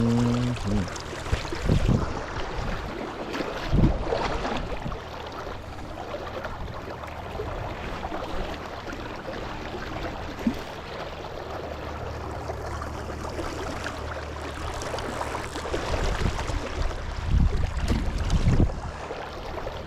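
River water running steadily, with a few low thumps or bumps now and then.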